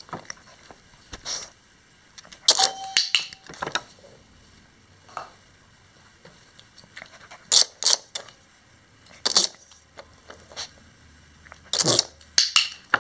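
Irregular sharp clicks and clattering as a small terrier paws and noses at a battery-powered push-button dog toy on a wooden floor, in several quick clusters. A brief steady tone sounds about two and a half seconds in.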